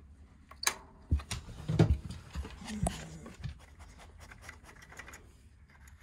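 Sharp clicks and light scraping from the exposed mechanism of a wall thermostat as a hand works its lever and dial, most of them in the first three seconds, followed by quieter rubbing.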